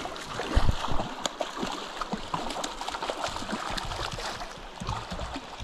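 River current running over rocks, with scattered splashes as a small hooked fish thrashes at the surface while it is reeled in.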